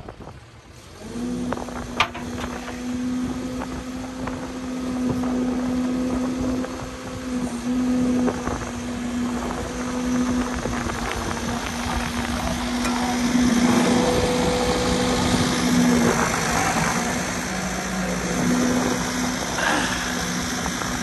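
Compact excavator's diesel engine running steadily with a pitched hum that starts about a second in. There is a single sharp knock shortly after it starts.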